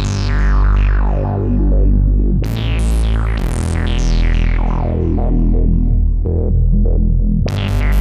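Novation MiniNova synthesizer playing its MogueLead lead preset: sustained notes over a held low note, with the filter sweeping down again and again from bright to dull. New notes strike about two and a half seconds in, a second after that, and again near the end.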